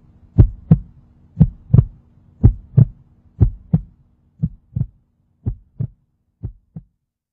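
Heartbeat: seven double thumps, lub-dub, about one a second, growing fainter and stopping shortly before the end.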